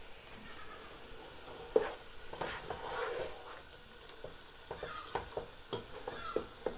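Plastic slotted spoon stirring and scraping chunks of cooked mutton in a nonstick pot, in irregular strokes with a sharper knock just before two seconds in, over a light sizzle from the hot pan.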